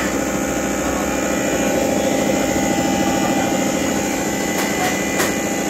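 Common-rail injector test bench running with a Denso diesel injector clamped in it: the bench's pump drones steadily while the injector fires in a fast, even pulsing, spraying fuel mist into the shielded test chamber. Two faint ticks come near the end.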